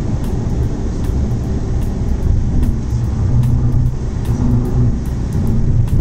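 Steady low rumble of a car driving at highway speed, heard from inside the cabin: engine and tyre noise.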